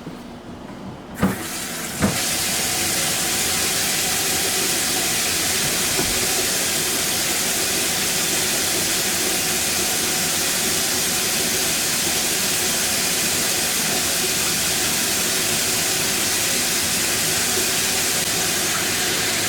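Kitchen faucet turned on with a couple of knocks, then running steadily, water hissing into the sink and down the drain pipe.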